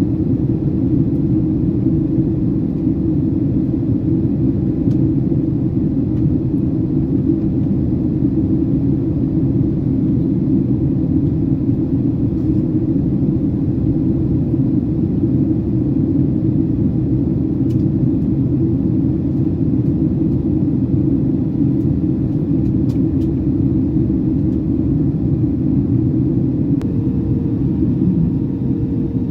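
Steady low drone of a Boeing 767-300ER cabin in flight: engine and airflow noise heard from a window seat over the wing. A faint steady hum joins in near the end.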